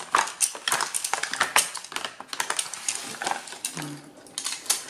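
Crochet hooks with plastic handles and aluminium shafts being pulled out of a clear plastic storage tray and gathered together by hand: a rapid clatter of small plastic and metal clicks. It eases off briefly a little before the end.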